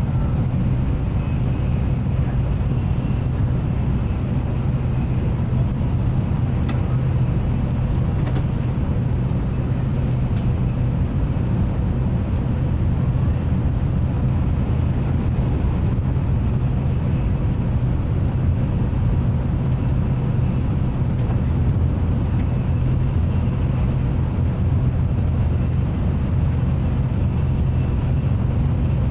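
Steady low rumble of a Nozomi Shinkansen running at speed, heard from inside the passenger cabin, with faint steady tones above it and a few faint clicks about a third of the way in.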